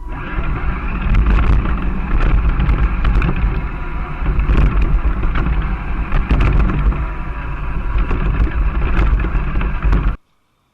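Radio-controlled rock crawler's electric motor and drivetrain running as it drives and churns through sand, with heavy wind rumble on the microphone and scattered small clicks. The sound starts abruptly and cuts off sharply near the end.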